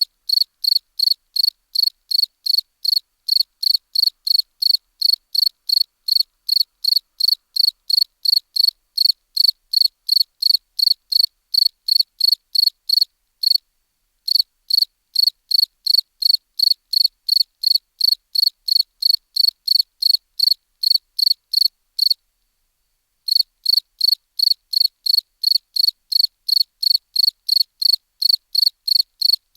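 Field cricket chirping in a steady, even rhythm of about three high-pitched chirps a second, with two short breaks of about a second each, around the middle and later on.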